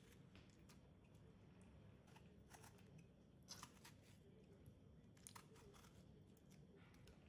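Faint crunching snips of a small knife cutting through ripe tomatoes held in the hand, a handful of separate cuts, with chunks dropping into a stainless steel pot, over near silence.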